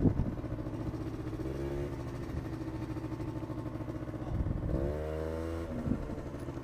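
A small scooter engine running at low speed in a car park. Its pitch rises briefly twice with the throttle, about one and a half seconds in and again about four and a half seconds in.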